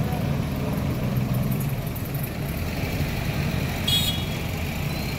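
Street traffic: motor vehicles running and passing in a steady rumble, with a brief high-pitched beep about four seconds in.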